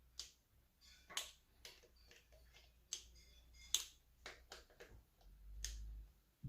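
Faint, irregular sharp clicks of a hand ratchet wrench turning bolts on a Ford 3.7L engine, as the bolts are tightened a further 45 degrees past their torque setting. A low rumble comes in near the end.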